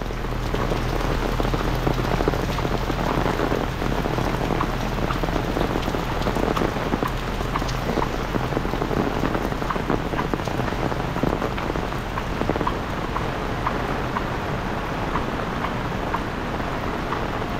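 Heavy rain falling steadily: a dense hiss of rain with many close raindrops ticking sharply through it.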